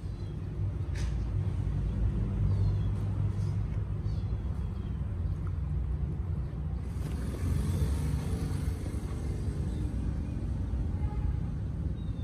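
Low, steady rumble with a few faint short clicks and small high chirps above it; it grows louder and brighter for a couple of seconds around the middle.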